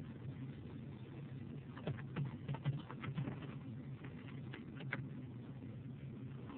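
Computer keyboard keys tapped in a short run, then a couple of mouse clicks, over a faint steady low hum.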